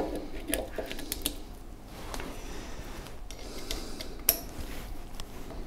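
Light metallic clicks and taps as a small lever-operated oil pump and its screws are handled and offered up against a machine's knee casting, with one sharper click about four seconds in.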